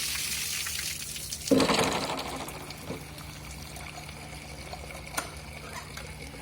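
Water rushing steadily, with a sudden loud surge about a second and a half in that fades over a second or so. There is a single sharp knock near the end.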